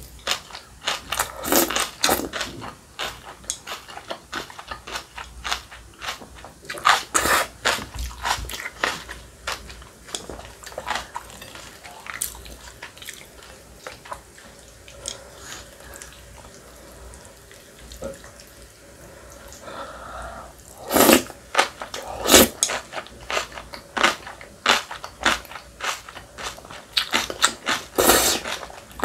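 Close-miked eating: repeated wet slurps of spicy cold buckwheat noodles (bibim naengmyeon) with chewing between them. There is a quieter stretch in the middle while the noodles are stirred in the sauce with chopsticks, and loud slurps again near the end.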